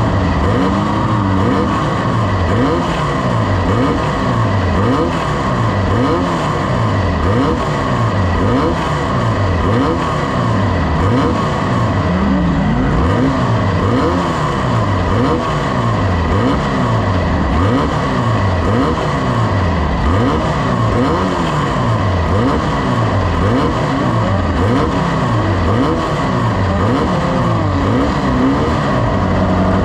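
A single racing engine being driven hard around a track, its pitch climbing and falling back again and again, about every second and a half.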